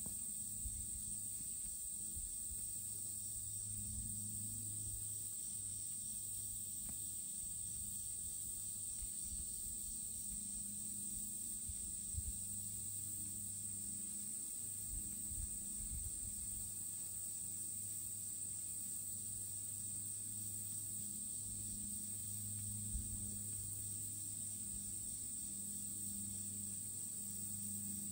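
Steady high-pitched drone of insects, with a low hum underneath that swells and fades and a few faint knocks.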